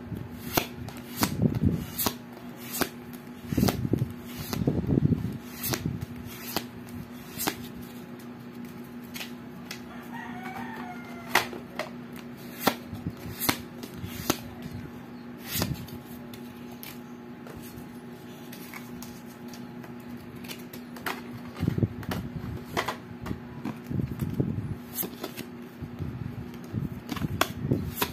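Exploding Kittens playing cards being handled and sorted by hand: crisp clicks and taps as cards are slid off the fanned deck and squared, with soft thuds of handling near the start and again late on, over a steady low hum. A faint short bird-like call sounds about ten seconds in.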